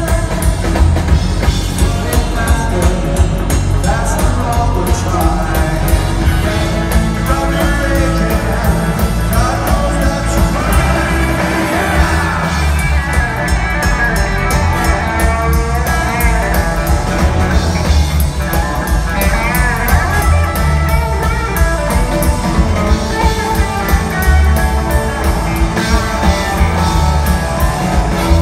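Live rockabilly big-band music: hollow-body electric guitar over a driving drum beat, with a horn section and some singing.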